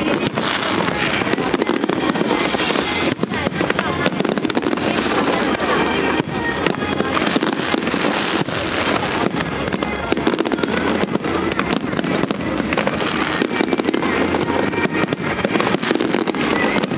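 Aerial fireworks going off in a continuous barrage, dense rapid bangs and crackling with no pause.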